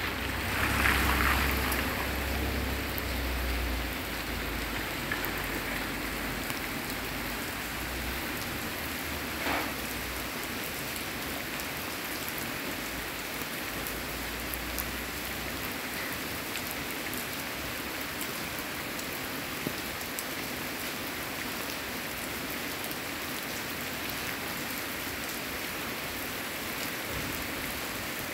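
Steady rain falling on a paved street and leafy plants, an even hiss of drops throughout. A low rumble sits under it in the first few seconds.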